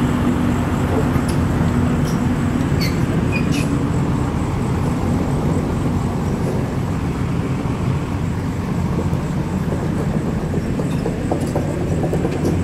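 Komatsu hydraulic excavator's diesel engine running with a steady low rumble.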